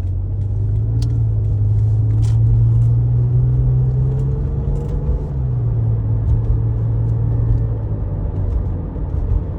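Car engine and road noise while driving, heard from inside the cabin: a steady low drone that rises a little in pitch, then drops back about five seconds in.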